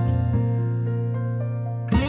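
Background music: sustained piano or keyboard notes over a steady bass.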